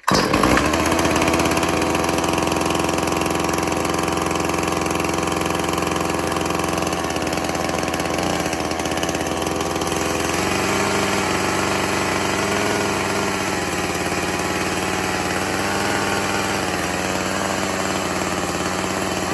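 Old two-stroke chainsaw catching at once on a cord pull during a cold start, then running steadily at idle; its engine note shifts slightly about ten seconds in.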